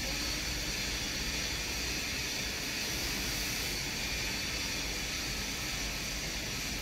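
Steady, even hiss with no breaks and no distinct events.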